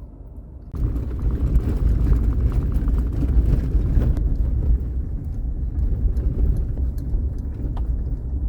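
Vehicle driving: a loud, low rumble with frequent small knocks and rattles, starting suddenly about a second in.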